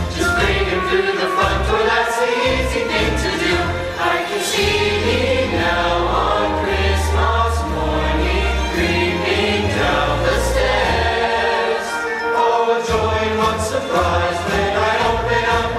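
High school show choir singing a Christmas song in full voice over an accompaniment with a deep bass line.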